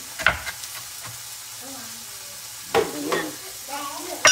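Kitchen knife chopping leafy greens on a wooden cutting board: a few separate sharp knocks, one just after the start and one near three seconds in, with a steady faint hiss between them and a louder knock at the very end.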